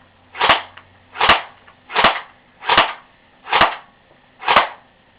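Airsoft rifle fired on single shot: six sharp pops, about one every 0.8 seconds.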